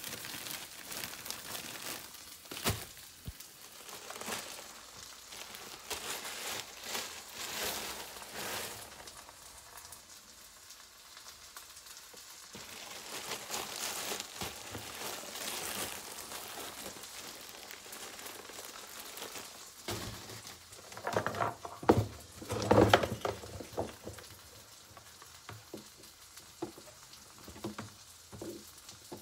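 Thin plastic bread bag crinkling as slices are taken out, over a steady sizzle of sausages frying in a pan. A few loud sharp knocks come about three-quarters of the way through.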